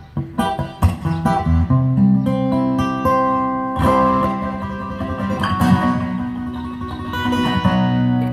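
Acoustic guitar strummed with quick, crisp strokes for the first second or so, then chords left to ring, with a fresh strum now and then.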